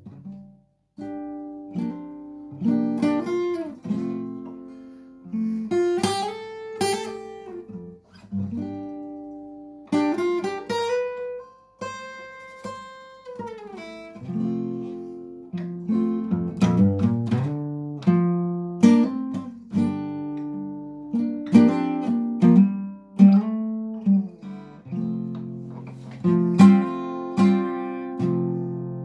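Solo acoustic guitar played without singing: plucked chords and single notes that ring out and fade, with a few notes slid upward along the neck.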